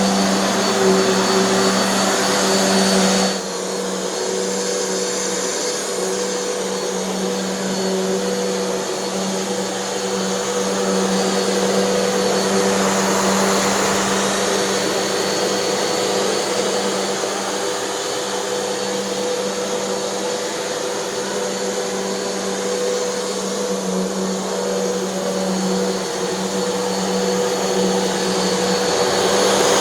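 Hoover NanoLite upright vacuum running steadily, its motor drone holding a constant pitch, with the sound dropping abruptly in level and tone about three seconds in. The brushroll's idler pulley is held fast with low-temperature hot glue, and this is a run testing that repair.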